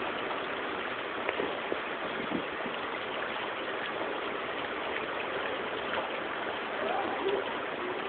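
Spring water gushing and babbling in a steady, even rush.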